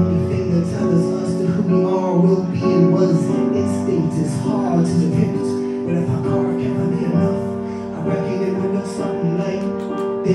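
Live band music: sustained keyboard chords over a steady beat.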